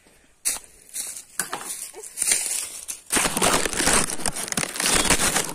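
Close rustling and crackling, a few scattered rustles at first, then loud and continuous from about three seconds in.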